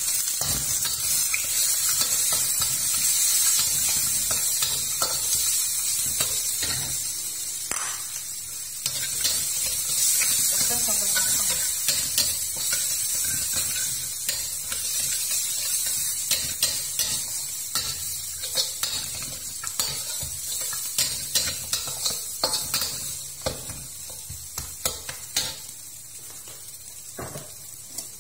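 Chopped garlic, shallots and spices sizzling in hot oil in a stainless steel wok, while a metal spatula scrapes and taps against the pan as they are stir-fried. The sizzle eases off in the second half, leaving the spatula clicks more prominent.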